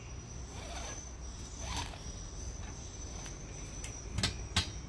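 Steel ratchet buckle of a polyester tie-down strap being handled: faint rubbing of the webbing, then two sharp metallic clicks about a third of a second apart near the end as the ratchet is worked.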